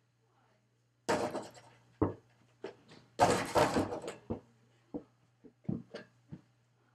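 Irregular knocks and thumps against a wooden door, with two longer bursts of scuffling, as a small ball is shot at an over-the-door mini basketball hoop and a child moves about beside the door.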